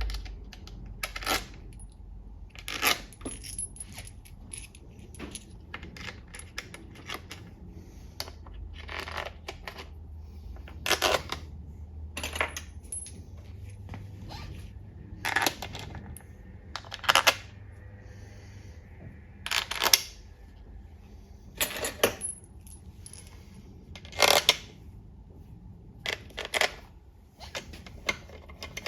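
Sharp metallic clinks and taps of bolts and hand tools, irregular and a second or two apart, while an oil pan is fitted to an automatic transmission.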